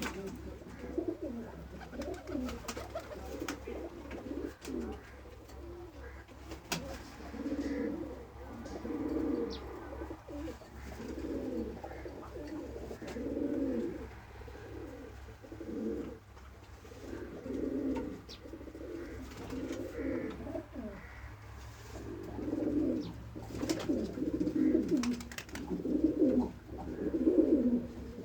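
Pigeons cooing, a run of low, warbling coo phrases repeating every second or two, over a steady low hum.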